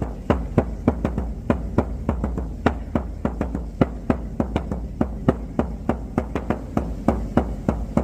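Hand-made shamanic frame drum struck with a beater in a steady, fast beat of about four to five strikes a second, each strike ringing briefly.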